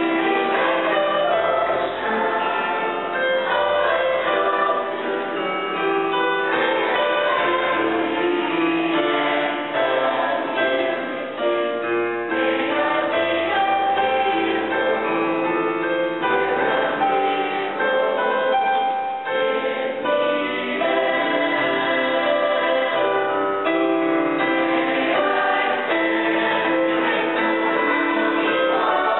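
Mixed choir of teenage girls' and boys' voices singing a piece in parts, holding chords and moving from note to note together.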